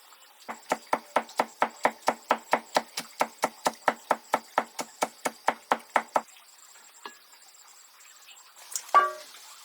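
Rapid, even chopping strokes, about five a second, which stop about six seconds in. A brief pitched sound follows near the end.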